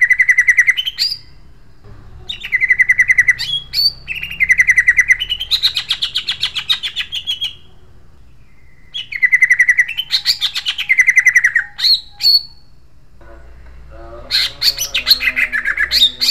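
Male greater green leafbird (cucak ijo) singing loud, harsh, sharp rolling trills in about five bouts a few seconds long, separated by short pauses.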